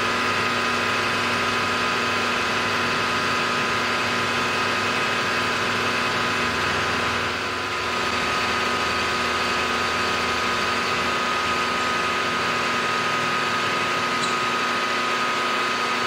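Milling machine spindle running with an end mill cutting a recess into a metal block: a steady machine whine with several held tones over a hiss. The low part of the sound shifts slightly about seven seconds in.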